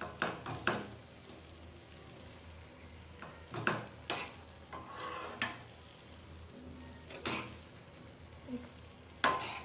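A spatula stirring and scraping ivy gourd sabzi with grated coconut around a non-stick frying pan, in irregular strokes, over a faint steady sizzle of the vegetables cooking.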